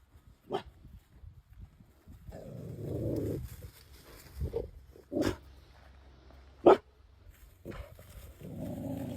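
A dog barking in short, single barks, the loudest about two-thirds of the way through, with two longer, lower sounds in between.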